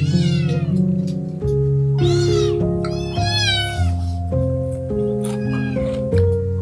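Cat meowing again and again, long calls that rise and then fall in pitch, over background music of slow held notes.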